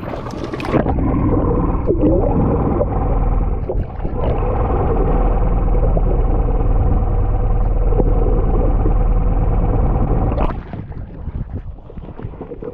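Boat motor running steadily and loudly, coming up about a second in and dropping away suddenly near the end.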